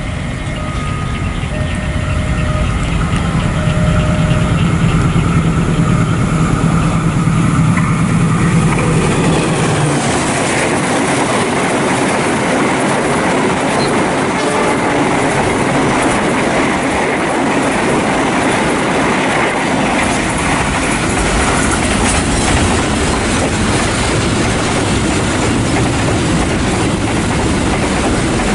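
A diesel locomotive hauling a container freight train approaches with a steady engine hum. From about ten seconds in, a passenger express and the container wagons pass at speed, with a continuous loud rumble and clatter of steel wheels on the rails.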